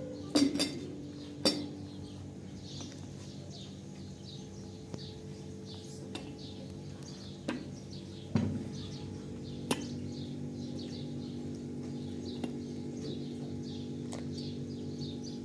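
Birds chirping over and over, with a few sharp knocks, the loudest near the start and about eight seconds in, and a steady low hum underneath.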